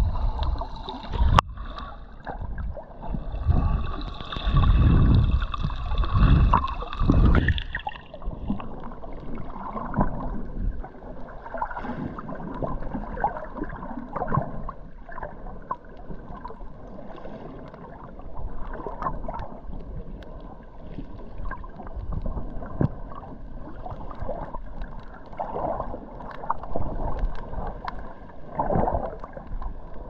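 Water sloshing and gurgling around a GoPro Hero11 held underwater while snorkeling, muffled. Heavy low rumbles come in the first eight seconds, then a quieter, steadier wash with small scattered ticks.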